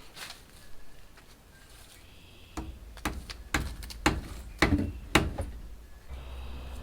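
A series of sharp, irregular knocks, about eight in three seconds, the loudest near the end.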